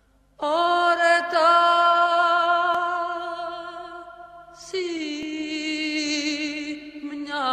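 A solo voice chanting slow, long-held notes with a wavering vibrato: one long note starting about half a second in, a slightly lower one from about five seconds in, and a new note starting near the end.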